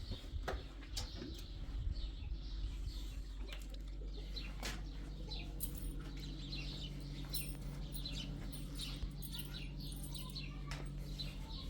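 Small birds chirping, many short high chirps scattered throughout, over a low steady hum.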